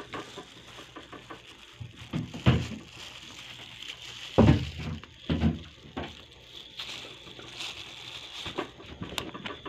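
Thin plastic takeout bag rustling and crinkling as a hand reaches in among pieces of fried chicken. There are a few dull knocks, about two and a half, four and a half, and five and a half seconds in.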